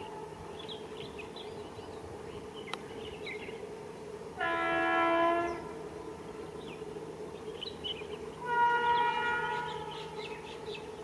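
Locomotive horn sounding twice: a blast of about a second roughly four seconds in, then a second blast about eight seconds in that fades away, over a steady low hum.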